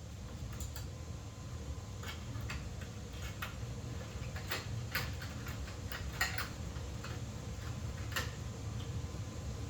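Irregular light clicks and ticks of romex wires and hand tools being worked into a single gang switch box, over a low steady hum.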